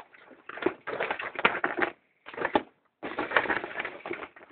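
Crackling, clicking handling noise in irregular bursts, from hands working the small plastic and metal parts of an opened iPod Classic, with its battery being worked loose.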